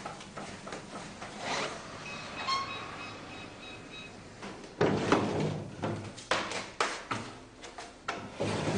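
A wooden drawer being handled and file folders and papers rummaged through: a run of knocks, scrapes and rustles starting about five seconds in.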